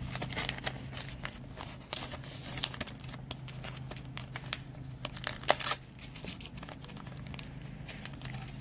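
Trading cards and crinkly plastic packaging being handled: irregular crinkling rustles and small clicks over a steady low hum.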